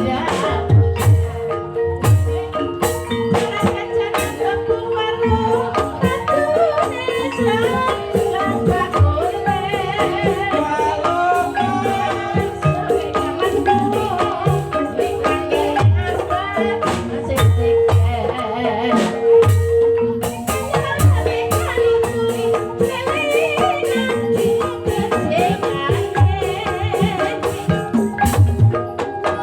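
Live Banyumasan ebeg music: an ensemble of pitched mallet percussion playing a steady repeating figure over regular low drum strokes, with a wavering melodic line above.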